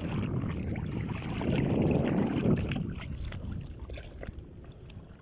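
Wind rumbling on the microphone and water noise aboard a small fishing boat at sea. The sound swells about a second and a half in, then eases off toward the end.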